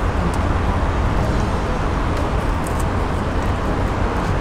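Steady, loud low rumble of air noise on the microphone, with a few faint small ticks.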